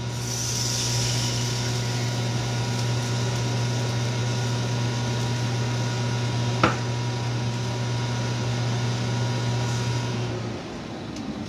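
Kitchen range-hood vent fan running with a steady hum, with a soft hiss in the first couple of seconds as pineapple juice pours into the pan. There is a single click about two-thirds of the way in, and the fan hum cuts off near the end.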